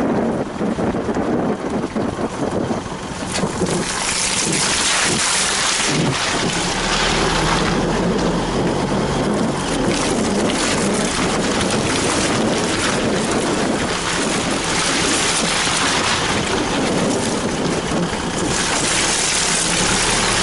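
Isuzu 4WD running as it drives a muddy track, with a loud, steady rushing noise over the engine from about three and a half seconds in.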